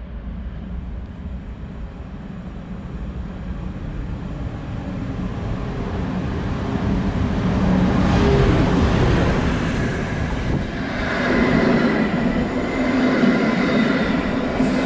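Electric locomotive hauling an Intercity passenger train approaching and passing: a rumble that grows as it nears, loudest as the locomotive goes by about eight seconds in. The carriages' wheels follow, rolling on the rails with a steady ringing tone.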